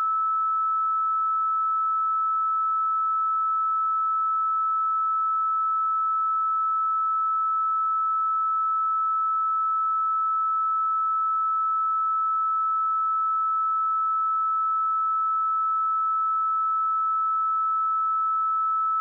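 A steady, unbroken 1307 Hz sine-wave test tone: a single pure high-pitched note at constant loudness.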